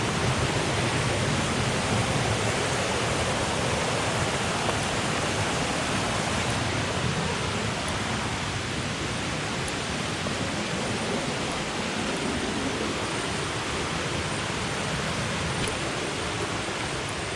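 Rushing water of a rocky jungle river and small waterfall: a steady, even rush.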